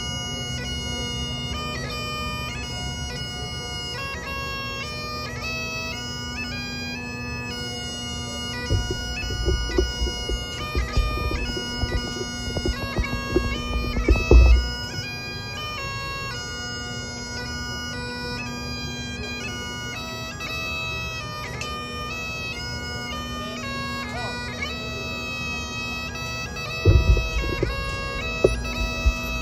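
Great Highland bagpipes playing a slow tune, the steady drones sounding under the chanter's melody. Low rumbling bursts on the microphone come in through the middle and again near the end, the loudest about halfway through.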